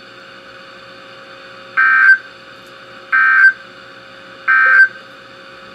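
Emergency Alert System end-of-message data bursts on NOAA Weather Radio: three short, loud digital screeches, a little over a second apart, over a faint steady hum and hiss. They are the coded signal that the alert broadcast has ended.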